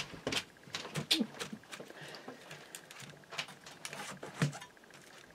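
A knife cutting through a baked pie crust: irregular crisp crackles and scrapes as the blade breaks the crust.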